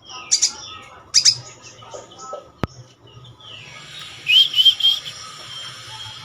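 Sogon bird calling: two sharp, high calls in the first second and a half, then a quick run of whistled, chattering notes a little past halfway. A single click sounds in between.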